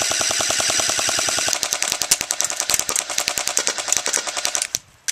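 A&K M249 Para airsoft electric machine gun firing full-auto in one long burst, a rapid, even rattle of gearbox cycling and BB shots that cuts off shortly before the end. The gun's battery is not fully charged.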